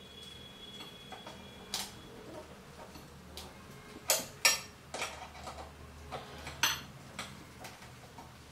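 Screwdriver driving screws into the soft board base of a steel tripod arm rest: irregular sharp metallic clicks and clinks, the loudest about four and a half seconds in.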